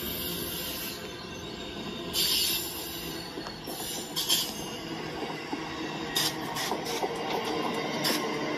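LEGO train cars rolling past on plastic track: a steady rattle of wheels, with several brief sharp squeaks and clicks.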